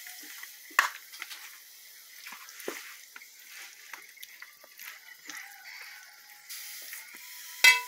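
A kitchen spoon clicking and scraping against an aluminium baking tray while pieces of seasoned raw chicken are pushed around and spread out, in scattered light taps with a sharper clack near the end.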